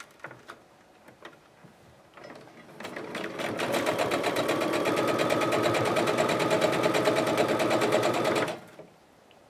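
Electric sewing machine stitching a patchwork seam: after a few light clicks it speeds up about two seconds in, runs at a steady rapid stitch, and stops abruptly near the end.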